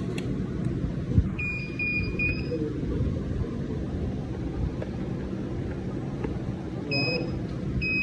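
A treadmill controller board being powered up on the bench: a sharp click about a second in, then short high electronic beeps, a quick run of them just after and two more near the end, over a steady low rumble.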